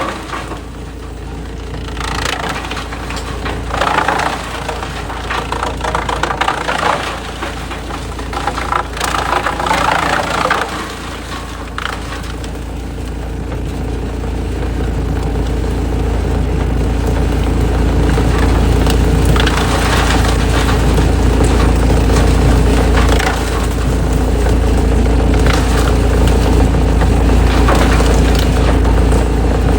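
Industrial wood shredder's engine running steadily under load while logs are crushed and splintered, with bursts of cracking wood in the first part. From about halfway through, the grinding becomes louder and steadier.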